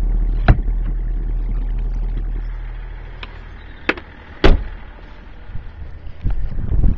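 A low, steady hum inside the car's cabin fades out after about three seconds. A few light clicks follow, then a loud single slam about four and a half seconds in, like a car door being shut. Handling and wind noise follow.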